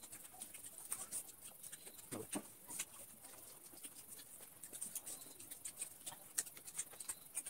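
Faint eating sounds: chewing and mouth smacks, with scattered small clicks of fingers and food against plates, a loose patter of quick ticks.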